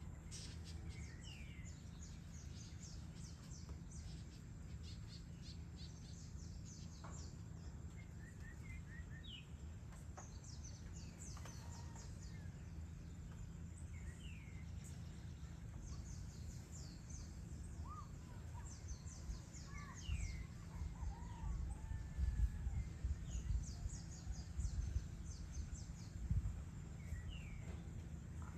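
Outdoor evening ambience of birds calling: short whistled notes that rise and fall, and bouts of rapid high trills, over a steady low rumble. The rumble swells in uneven gusts during the second half.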